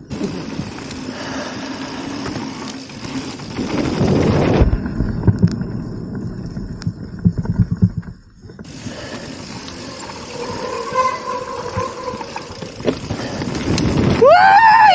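Mountain bike ridden down a dirt trail: wind buffeting the helmet-mounted camera's microphone and tyres and bike rattling over the ground, with scattered knocks. A person's shout rises and falls just before the end.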